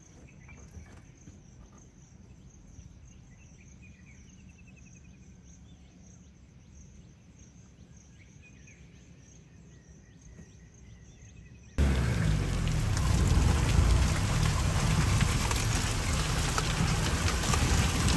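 Quiet forest ambience with a steady high insect whine and a few faint bird calls. About twelve seconds in it cuts suddenly to the loud, steady noise of a safari jeep on the move: engine running under a rushing, rain-like hiss.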